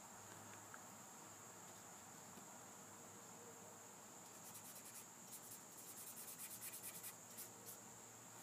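Flat paintbrush laden with black paint scrubbing on sketchbook paper, a run of quick short strokes from about four seconds in to near the end, over a faint steady high-pitched whine.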